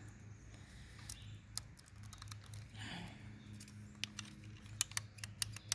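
Irregular light clicks and taps from handling a plastic smoke alarm while working at a battery pushed in too far to come out, more of them near the end, over a faint steady hum.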